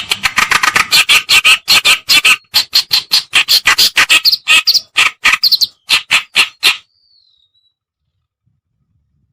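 Kerakbasi (reed warbler) song from a bird-lure recording: a fast run of harsh, chattering notes, about four or five a second, that stops abruptly about seven seconds in, followed by a brief faint thin whistle.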